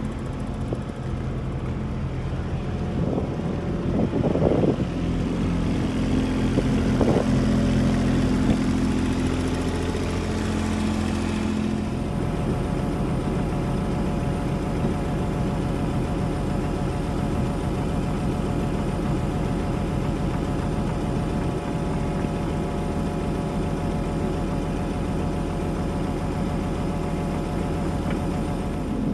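Kubota U27 mini excavator's diesel engine idling steadily, its sound changing a little about twelve seconds in.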